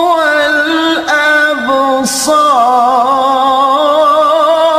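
A male qari reciting the Quran in the melodic mujawwad style, holding long ornamented notes with vibrato, with a quick breath about two seconds in.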